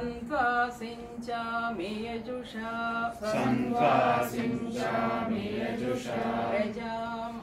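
A small group of voices chanting a Sanskrit Vedic mantra together, held on a steady reciting pitch.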